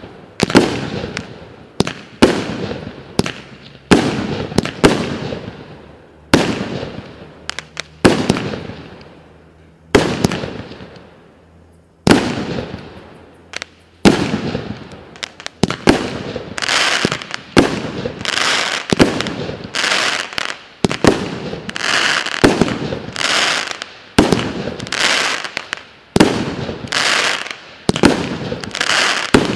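Minas Fireworks Posseidon multi-shot fireworks cake firing, its shells bursting in the sky about once a second, each a sharp bang with a long fading echo. From about halfway, each bang runs into a dense sizzling crackle.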